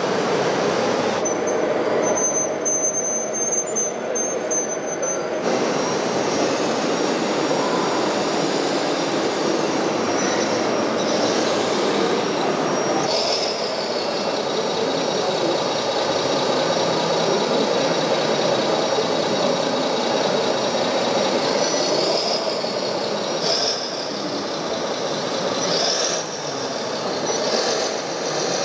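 High-pitched electric motor and gear whines of radio-controlled model vehicles, rising and falling several times from about ten seconds in, over a steady dense din.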